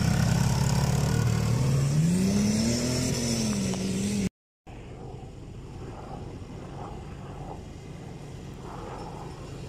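Quad bike engine running close by, revving up and easing off as the rider pulls away. About four seconds in the sound cuts out for a moment, then runs on quieter and steadier as the quad moves off into the distance.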